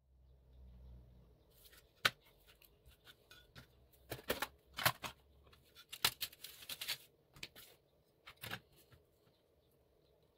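Drafting tools, a metal ruler, a plastic set square and a pen, handled and slid across a sheet of board on a cutting mat: scattered clicks and scrapes, with a sharp click about two seconds in and runs of scraping between about four and seven seconds in.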